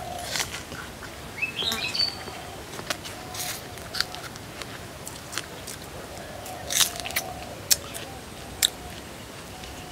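Crisp bites and chewing into a juicy star fruit (carambola), a few sharp crunches, the loudest near the end, while birds chirp with short rising calls.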